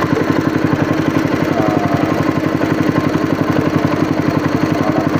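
Small boat engine running steadily at trolling speed, with a fast, even chugging pulse and a steady hum.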